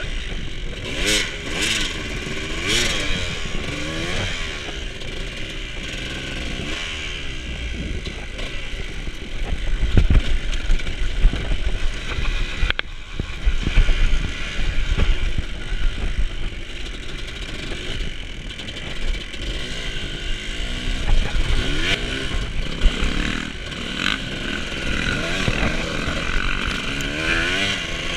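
Dirt bike engine revving up and down again and again as it is ridden, with scattered knocks and clatter. A heavy thump comes about ten seconds in and a sharp click a few seconds later.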